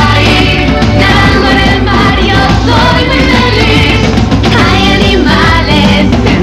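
Upbeat children's pop song with a steady beat and singing.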